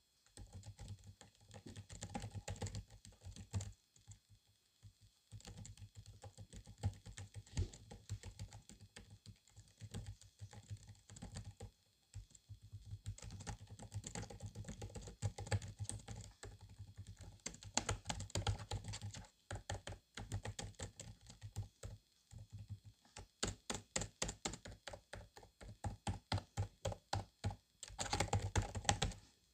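Runs of quick, light clicks and taps, like typing on a computer keyboard, broken by short pauses.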